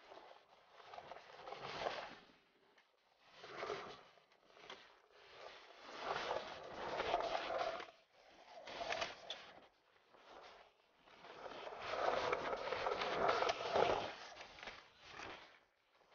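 Skateboard wheels rolling over rough concrete pavement, a gritty rumble that rises and fades several times as the board passes.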